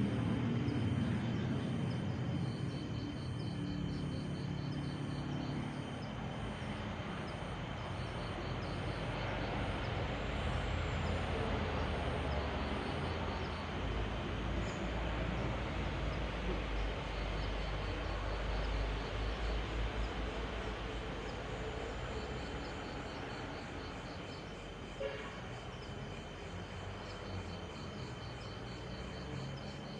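Steady night-time outdoor ambience: a low rumble with insects chirping in rapid repeating pulses. The tail of background music fades out in the first few seconds, and there is one short knock about 25 seconds in.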